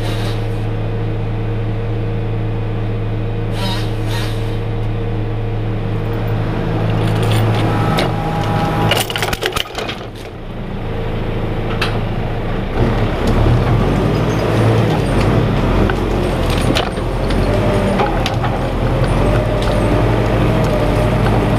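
John Deere 540D skidder's turbo diesel engine running under load while dragging a hitch of fir logs over snow, with scattered cracks and knocks from the logs and branches. The engine eases off briefly about halfway through, then pulls louder and heavier.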